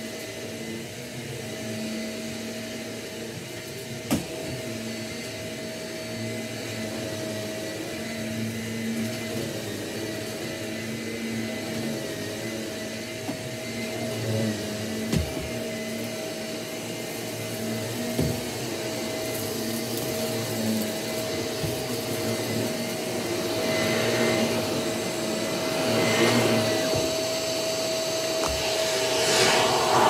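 Shark upright vacuum cleaner running steadily on carpet. It grows louder over the last several seconds as it is pushed back and forth close by, with a few light knocks along the way.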